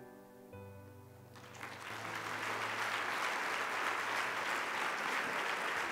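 Soft instrumental music closes out. About a second and a half in, an audience starts applauding, swelling quickly and then holding steady.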